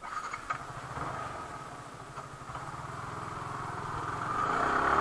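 Yamaha R15 V3's single-cylinder engine running as the motorcycle rolls slowly along, its note steady at first, then growing louder and rising slightly in pitch over the last two seconds as it speeds up.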